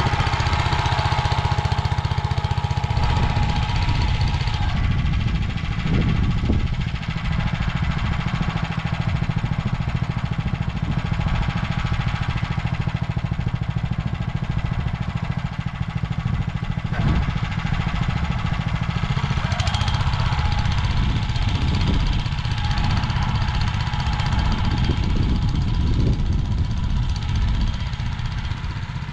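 Motor Sich walk-behind tractor's engine running steadily as the machine pulls a reversible plough through the soil.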